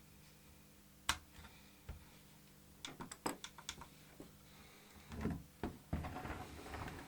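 Small plastic clicks and taps, with a quick run of clicks, then a few seconds of rustling and scraping: handling and fitting parts of a radio-control transmitter's plastic case and switch during reassembly.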